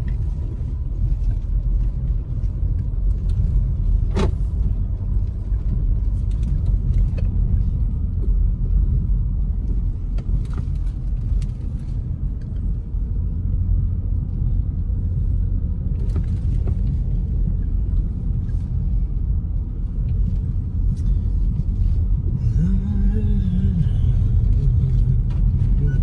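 Car driving along a dirt road, heard from inside the cabin: a steady low rumble of engine and tyres. A single sharp click about four seconds in.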